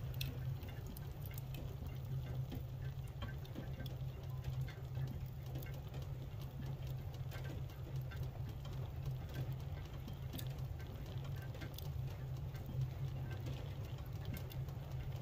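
Wood fire crackling in a small open steel firebox, with scattered sharp pops and ticks over a steady low hum.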